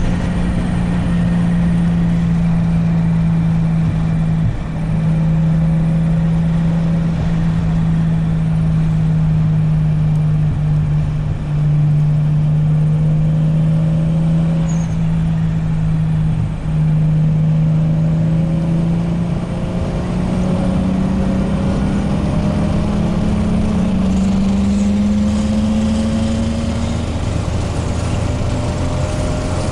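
Car engine pulling at a steady highway cruise, heard from inside the cabin over road noise. The engine note drops out briefly three times, then rises slowly as the car accelerates, and eases back near the end.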